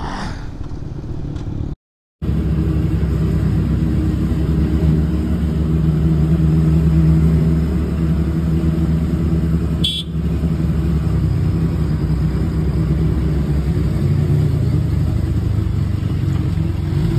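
Sport motorcycle engines running steadily at low, even revs as the bikes roll along slowly. The sound drops out completely for a moment about two seconds in, and there is a short click about ten seconds in.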